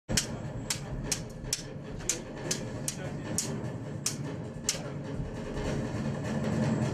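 Sharp clicks at an uneven pace, about two a second, over a steady low rumble; the clicks thin out after about five seconds.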